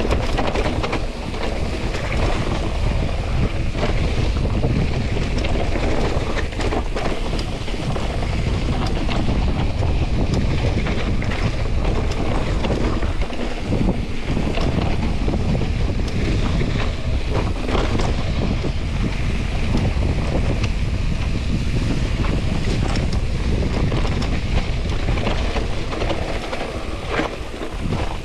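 Wind buffeting the camera microphone on a moving mountain bike, over steady tyre noise on a wet, muddy trail and scattered clicks and knocks from the bike rattling over rough ground.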